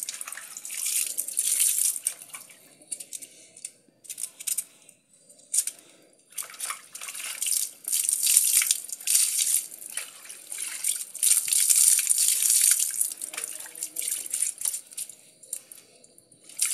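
Water scooped from a tub with a plastic jug and poured over a dog being bathed, splashing onto its coat and the ground in repeated pours with short pauses between.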